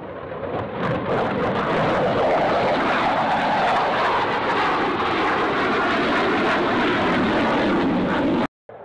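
F-15C Eagle's twin jet engines at takeoff power as the fighter climbs away: a loud, steady jet roar that swells about a second in and cuts off abruptly near the end.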